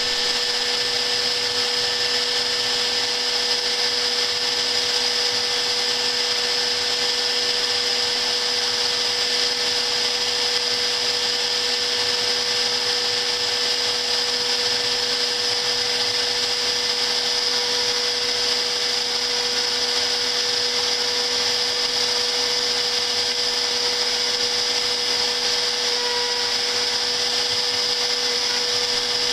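CNC router spindle motor running at a constant speed while machining a 3D logo: a steady, unchanging whine with hiss over it.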